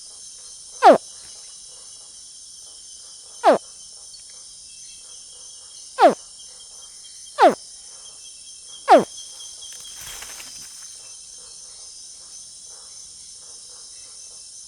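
A young crocodilian gives five short calls, each sliding sharply down in pitch, at uneven gaps over the first nine seconds. A steady chorus of crickets trills high behind it, and a short rustling noise comes about ten seconds in.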